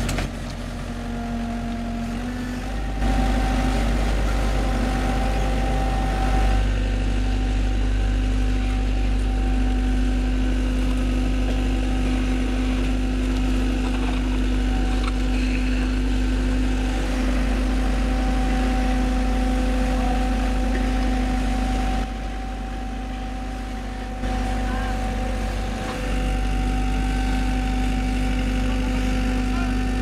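Diesel engines of road-paving machinery running steadily: a deep rumble with a steady humming whine over it. It gets louder about three seconds in and drops for a couple of seconds past the two-thirds mark.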